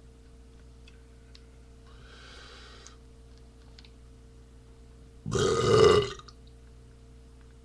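A man's single loud beer burp, lasting under a second, about five seconds in.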